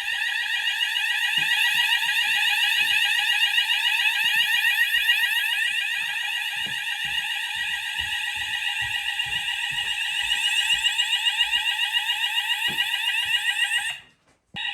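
Fire alarm sounders of a Hochiki ESP addressable system going off after a manual call point is operated in a test, a loud high warbling tone that sweeps rapidly. It cuts off shortly before the end, then sounds again briefly.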